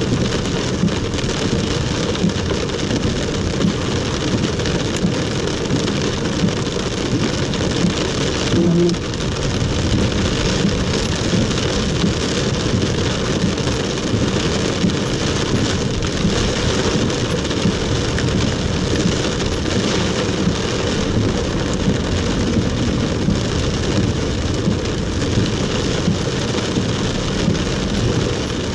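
Heavy rain drumming steadily on a moving car, heard from inside the cabin: a dense patter of drops on the roof and windshield mixed with the hiss of the wet road.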